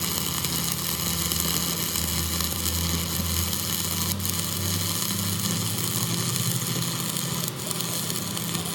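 A motor or engine running steadily with a low hum and an even hiss, from a machine at work during a truck axle repair.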